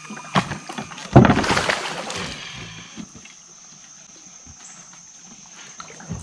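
Water splashing and sloshing in two bursts, the louder a little over a second in, then dying away to quiet with a faint steady high-pitched hiss.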